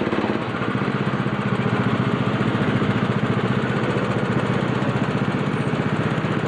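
Small gasoline engine of a ride-on track car running steadily with a rapid, even putter, heard from aboard the car.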